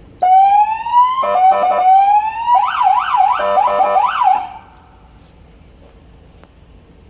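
Feniex police siren tested by button presses on its console controller. It starts with a slow rising wail, breaks into short chopped bursts, then switches to a fast up-and-down yelp, and cuts off about four and a half seconds in.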